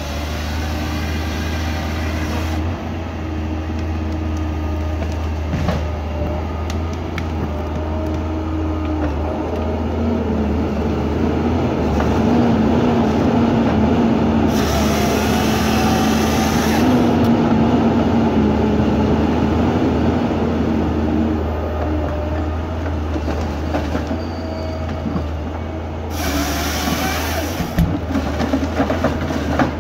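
Forest harvester running steadily, with hydraulic whine as the LogMax 6000B head grips and feeds the stem. Twice, about halfway through and near the end, the head's hydraulic bar saw (JPS R5500 saw motor with 3/4" chain) cuts through the log, each cut a burst of high hiss lasting about two seconds.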